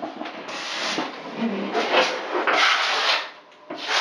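Brush scraping Laticrete liquid waterproofing membrane onto backer-board walls in a few separate strokes.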